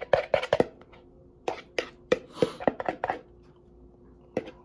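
Metal spoon knocking and scraping inside a mixing bowl while digging out ground meat: a quick run of sharp knocks, a second looser run with a brief scrape, a pause, then a couple more knocks near the end.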